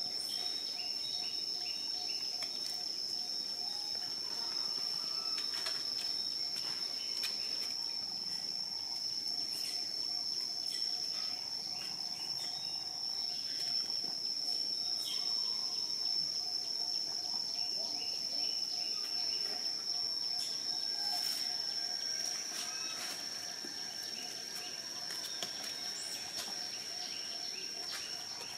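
Steady, high-pitched drone of insects, held unbroken, with a fainter lower pulsing insect trill beneath it and scattered faint bird chirps.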